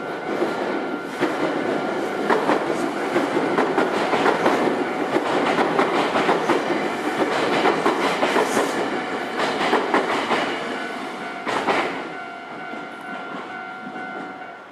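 Nankai electric train passing over the level crossing, its wheels clacking over the rail joints, easing off after about twelve seconds as the train clears. The crossing's warning bell rings steadily underneath and stops at the very end.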